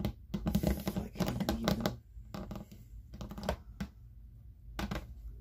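Handling noise of a plastic NECA Knifehead action figure turned in the hands close to the microphone: runs of clicks and knocks as the plastic limbs and fingers tap and rub, in two clusters with a short pause about two seconds in.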